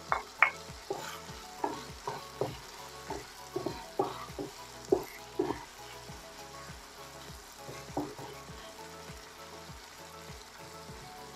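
Wooden spoon stirring chopped onion and chicken pieces in a frying pan, with sharp irregular knocks of the spoon against the pan over a faint frying sizzle. The knocks come thick and fast for the first half, then only a couple about eight seconds in.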